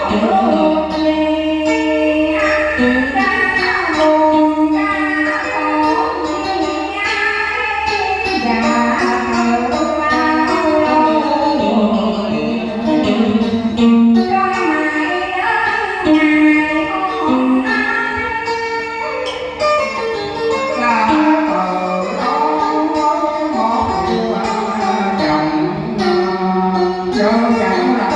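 Music: a Vietnamese song, a pitched melody line over a steady instrumental accompaniment.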